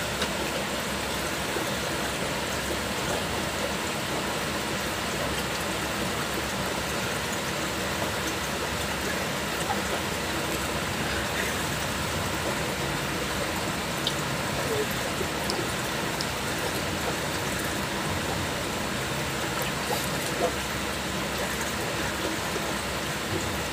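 A steady, even hiss of background noise, with a few faint clicks and taps.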